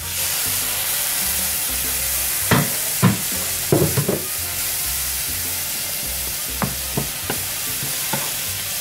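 Water poured into a hot frying pan of ground beef, onions and mushrooms sizzles and hisses into steam, the water added to simmer the mushrooms. A wooden spoon stirs and knocks against the pan, loudest about three to four seconds in, with a few lighter knocks later.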